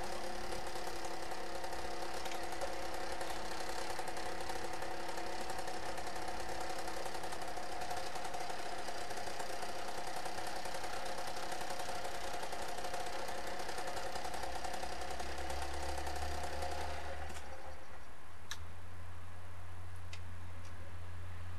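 Level crossing warning bell ringing with a rapid, continuous ticking chime while the barriers are down, then cutting off suddenly about 17 seconds in. A low hum sets in shortly before the bell stops.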